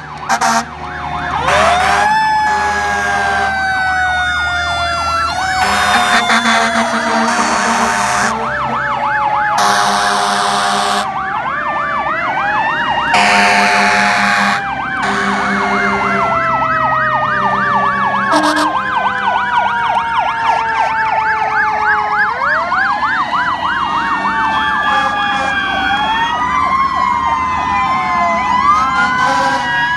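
Several fire engine sirens sounding at once and out of step with each other. Some wail quickly up and down, while others slide slowly down in pitch over several seconds. Short horn blasts come in over them again and again.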